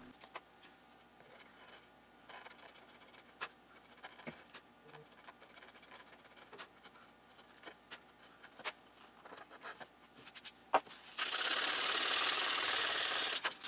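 Sharp chisel paring hardwood inlay flush, heard as faint scattered scrapes and clicks. About eleven seconds in, sandpaper rubbed by hand across the wood starts a loud, steady scratching.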